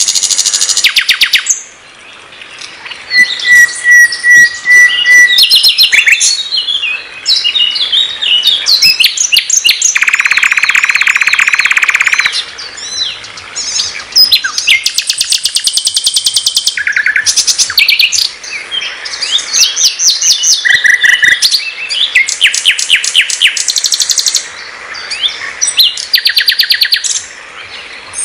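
Sikatan londo (nightingale) singing a varied song in phrases separated by short pauses. It mixes fast repeated notes and rattles with a held pure whistle and a dense buzzy phrase.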